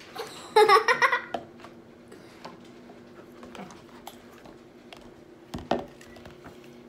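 Soft slime being squeezed and stretched by hand in a plastic tub, giving small sticky clicks and squelches. About a second in there is a short, high-pitched vocal squeal, and near the end one sharp knock.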